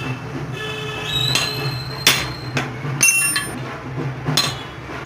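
Metal tools clinking and knocking against motorcycle engine parts, with high metallic ringing after the strikes, a few sharp hits about two, three and four and a half seconds in, over a steady low hum.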